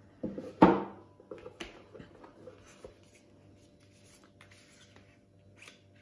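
Cardboard packaging and paper leaflets of a smart-lock box being handled on a table. There is a sharp knock about half a second in, then a few lighter taps and soft paper rustling.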